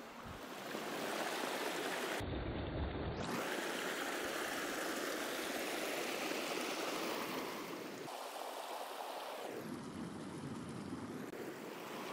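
Small shallow mountain stream running steadily over rocks and stones, with a short low rumble about two seconds in.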